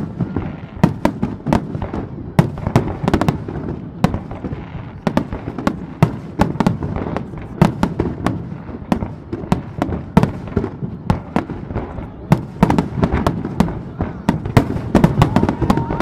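Aerial fireworks display: a dense, unbroken run of shell bursts and sharp bangs, several a second, over a steady low rumble of echoing booms.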